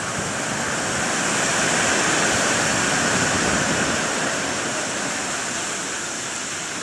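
Black Sea storm surf: a continuous rush of breaking waves that builds about two seconds in and then slowly eases.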